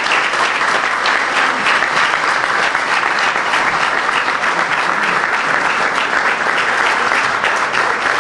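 A seated audience clapping, with steady, dense applause that does not let up.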